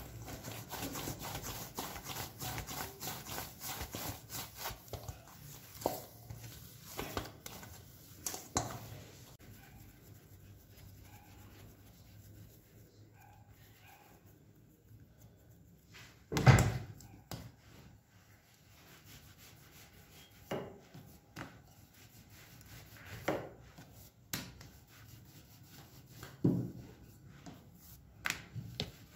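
Rested maida dough kneaded by hand in a stainless-steel bowl: a quick run of soft slaps and rubs for about nine seconds. Then quieter handling as dough balls are shaped on a stone countertop, with a few scattered knocks, the sharpest about halfway through.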